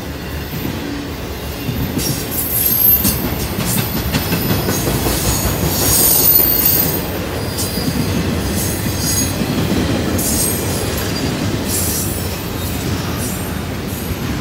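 Norfolk Southern intermodal freight cars rolling past at steady speed: a continuous rumble of wheels on rail with some clickety-clack over the joints, and thin high squeals from the wheels coming and going.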